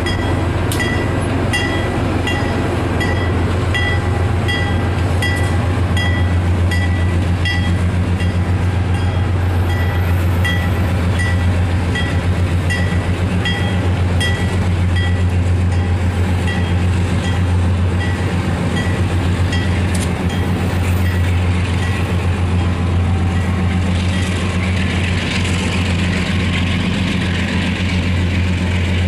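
Diesel locomotive engine droning steadily as it pulls an Amtrak California bilevel passenger train away. A bell dings steadily, somewhat faster than once a second, and stops about two-thirds of the way through. A hiss of rolling cars and wheels builds near the end.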